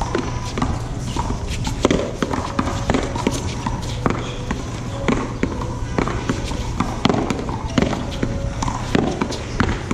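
Paddleball rally: paddles striking a tennis ball and the ball smacking off the wall and the court floor, sharp hits coming irregularly about every half second to a second, over a steady low rumble.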